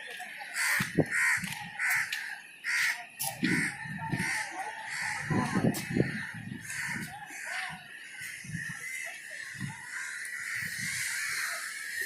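Repeated short, harsh bird calls, about two a second in a string through the first few seconds, then sparser, over a steady hiss of background noise.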